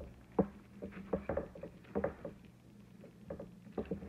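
Fabric ribbon rustling and scraping as hands pull and shape a bow on a metal gift tin, with irregular small clicks and taps, about eight in four seconds, over a faint steady hum.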